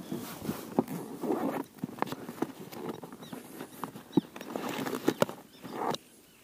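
Rustling with irregular sharp clicks and knocks: fishing gear being handled in an inflatable boat as a lure retriever is got out to free a snagged lure.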